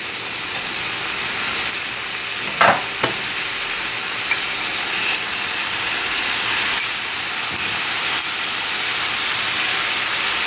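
Boiled broad beans sizzling in hot oil in a kadai, a steady frying hiss, with two short knocks about two and a half seconds in.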